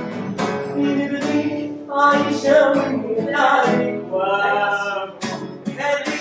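Background music: a hip hop song, with a sung vocal line in this stretch.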